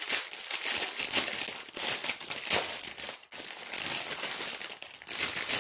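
Plastic packaging of diamond-painting drills crinkling and crackling as it is handled, in dense irregular bursts with a short pause about three seconds in.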